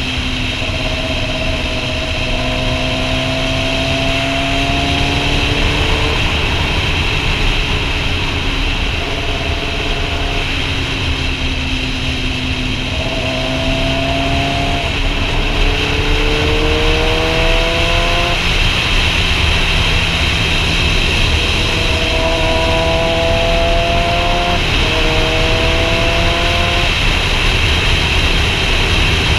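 Sport bike engine pulling through the gears: its pitch climbs in each gear and drops back at several upshifts, over steady wind rush on the microphone.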